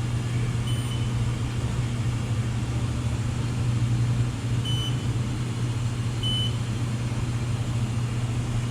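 Steady low hum of the CNC mill and shop machinery, with a few short high beeps from the mill's control keypad as keys are pressed, about a second in, near the middle and a little after.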